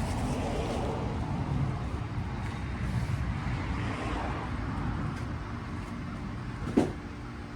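Low rumble of road traffic going by, easing off over the last few seconds. A single short, sharp knock comes near the end.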